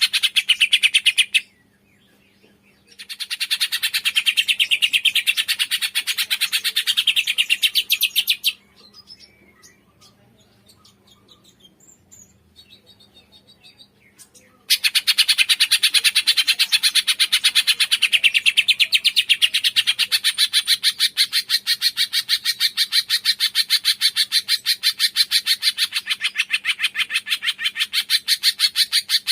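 A cungkok bird calling in long runs of very rapid, evenly repeated high chirps. It stops briefly about a second and a half in, and again for about six seconds in the middle, leaving only faint scattered notes before the rapid chirping resumes.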